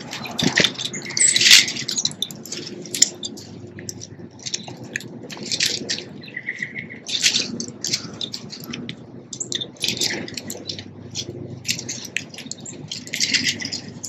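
Small songbirds chirping around a backyard bird feeder: a steady scatter of short, high chirps and chip notes, with one brief whistled note about halfway through.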